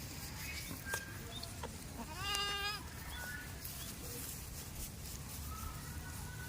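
A goat bleats once, a short quavering call about two seconds in, over a steady low background rumble. There is a brief click about a second in.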